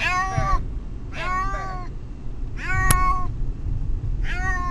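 A distressed domestic cat meowing repeatedly: about four drawn-out meows, roughly a second apart, each rising and falling in pitch. A brief sharp click sounds about three seconds in.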